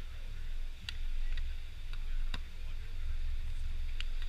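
Several sharp slaps of a volleyball being struck by hands during a rally, the loudest a little past two seconds in and near the end, over a low rumble of wind on the microphone.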